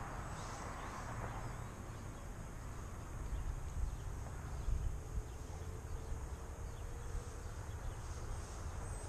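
Wind rumbling on the microphone, with the faint buzz of an electric RC plane's motor and propeller in the air and a slow gliding tone in the middle. The pilot takes the odd sound for a propeller problem.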